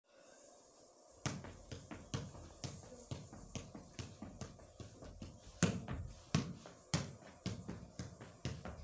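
A football being juggled, the ball thumping off the foot in a steady rhythm of about two touches a second, with lighter taps between, starting a little over a second in.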